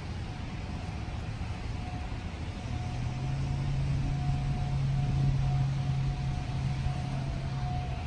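A road vehicle passing, its low engine hum coming in a few seconds in, swelling in the middle and fading near the end, over a steady low outdoor rumble.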